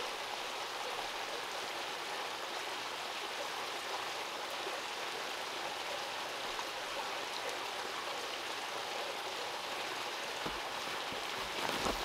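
Steady rush of a stream running through the bush. Near the end, short knocks and brushing from someone moving through the undergrowth.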